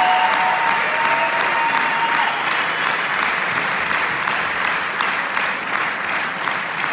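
Large concert-hall audience applauding with dense, steady clapping that eases slowly. A few high held tones ring over it and die away about two seconds in.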